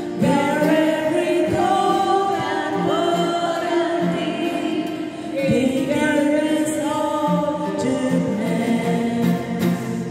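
Women singing a hymn together, several voices holding long sustained notes.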